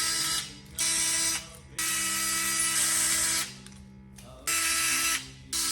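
Drill-driver with a Phillips bit running in repeated short bursts, starting and stopping abruptly, backing screws out of the wall.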